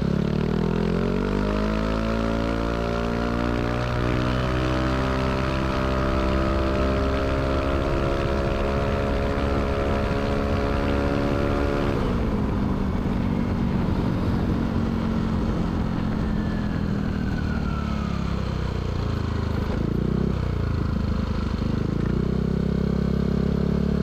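Yamaha Aerox 155 scooter's single-cylinder engine heard through a K'RACE standard-racing aftermarket exhaust. The note rises as the throttle opens over the first couple of seconds, holds steady, drops sharply about halfway through when the throttle is eased, and climbs again a little before the end.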